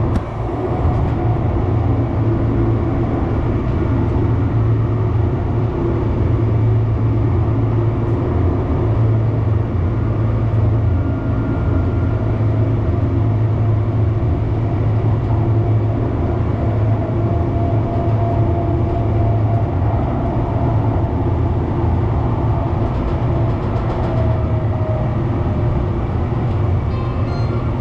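RTD H Line light-rail train running, heard from inside the car: a steady low rumble of wheels on track, with a faint whine for several seconds in the second half.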